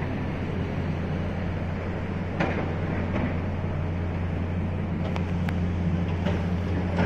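A vehicle's engine running with a steady low hum over road noise, with a few light knocks about two and a half seconds in and again around five seconds in.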